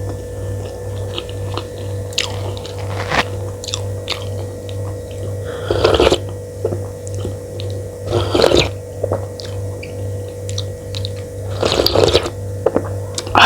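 A person chewing and crunching mouthfuls of food close to the microphone, with many small wet mouth clicks and three louder crunchy bites spread through. A steady low electrical hum runs underneath.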